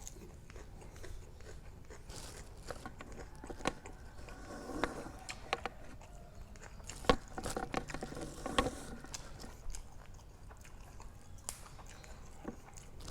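A person chewing and biting into food, with scattered small clicks and knocks, the loudest a few sharp ones in the middle stretch.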